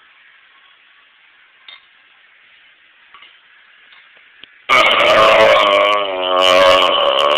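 A person belching: one long, loud burp starts suddenly about four and a half seconds in and carries on unbroken, its pitch wavering, after a few seconds of faint hiss with small clicks.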